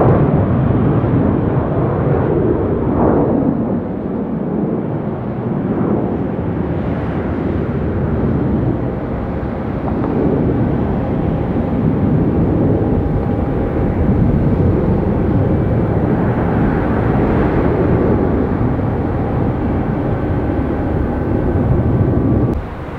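Twin jet engines of a Frontier Airlines Airbus A320-family airliner at takeoff thrust, a loud, steady roar as it lifts off and climbs away, with a faint whine coming through in the second half.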